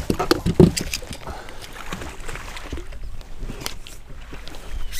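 Handling noise on a fishing boat while a crappie is landed: knocks and clothing rustle as the anglers move about the deck, with a cluster of louder knocks in the first second.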